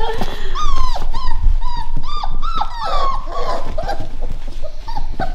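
Five-week-old Labrador puppies whining, a quick run of short high-pitched cries, several a second, each dropping in pitch at the end.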